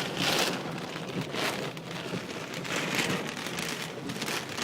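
Heavy wind-driven rain of a severe thunderstorm beating on a car, heard from inside the car, swelling and easing in surges.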